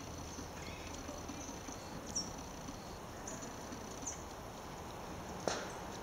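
Faint high-pitched animal calls over a steady hiss: a few short, very high chirps, and stretches of a thin, steady high note lasting about a second each. One sharp click comes near the end.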